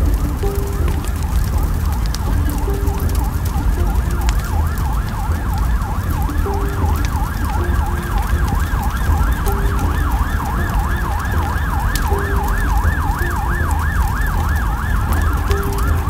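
Several emergency-vehicle sirens wailing over one another, their pitch swinging up and down, with the swing becoming faster and more regular in the second half. A heavy low rumble sits underneath, and short low tones recur every second or two.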